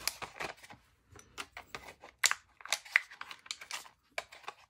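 Cardboard-and-plastic blister packaging of a fountain pen being handled: irregular crinkles and clicks of card and plastic.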